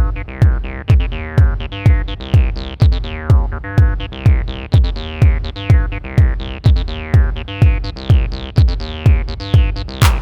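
Behringer RD-9 drum machine playing a steady four-on-the-floor kick at about two beats a second, under a Behringer TD-3 acid bassline whose filter sweeps down on each note.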